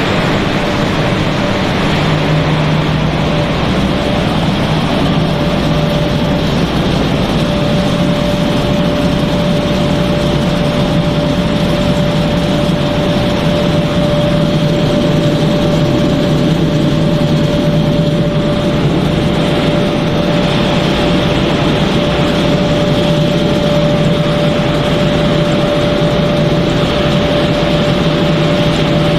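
Snack pellet production-line machinery running: a constant mechanical hum and rush of motors and fans, with a steady whine that grows stronger a few seconds in.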